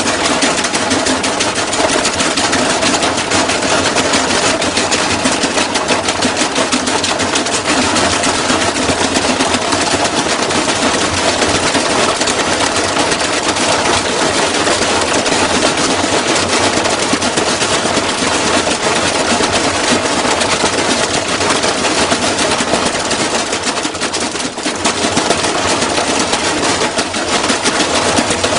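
Washing machine running with bricks and metal pieces loose in its drum: a loud, continuous, rapid clattering and banging, briefly easing about 24 seconds in.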